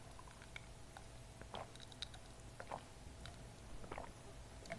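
A person drinking a cold drink: four faint swallowing sounds, about a second apart.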